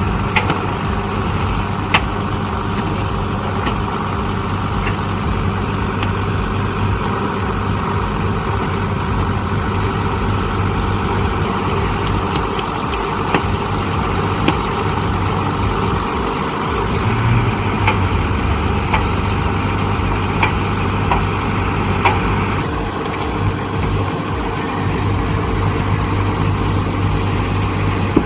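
Heavy machine's engine running steadily, with scattered short clicks and knocks.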